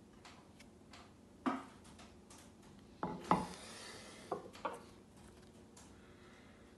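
Agate stone candle holders being handled: a few sharp clinks and knocks as the stone pieces are picked up and set down on a hard tabletop, with a short scrape about three seconds in.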